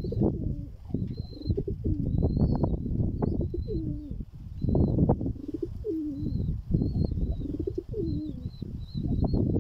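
Pigeons cooing: several low rising-and-falling coos over a rough, uneven rustling noise, with a small bird chirping in short high notes throughout.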